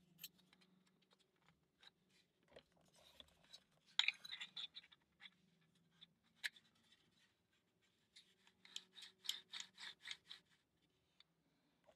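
Laser-cut plywood parts of a wooden mechanical model being handled and fitted: light clicks, knocks and wood rubbing on wood, with a cluster of knocks about four seconds in and a quick run of clicks later on.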